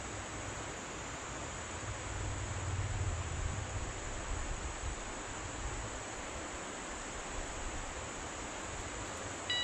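Steady rushing of a river flowing well, with a low rumble of wind on the microphone during the first half.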